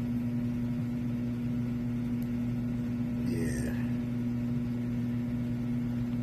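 Steady low electrical hum of the running HVAC system's blower motor.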